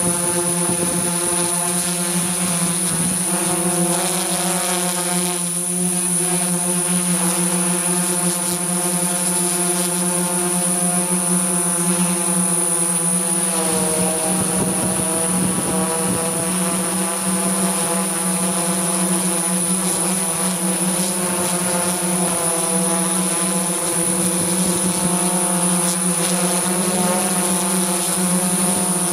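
Multirotor camera drone's propellers and motors: a steady buzzing hum with a thin high whine above it. The pitch shifts slightly a little before halfway and again near the end as it manoeuvres.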